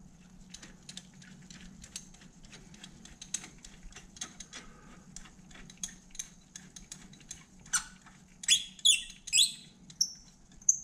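Hand tools working on the spark plugs: a run of light, irregular metal clicks and ticks from the socket and wrench, then three short squeaks falling in pitch near the end.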